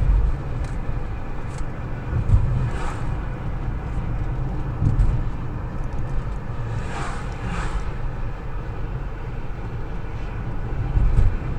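Road and engine noise heard from inside a moving car's cabin: a steady low rumble, with a few brief higher swishes about three and seven seconds in.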